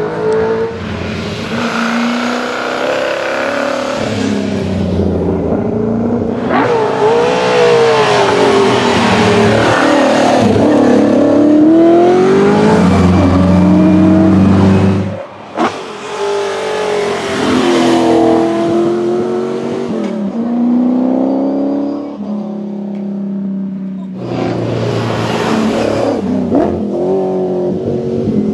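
TVR Griffith 200 race car's tuned Ford 289 V8 at full throttle, its pitch climbing and dropping again and again through gear changes as it accelerates up the road and drives past. The sound breaks off abruptly about halfway through and again near the end as one pass gives way to the next.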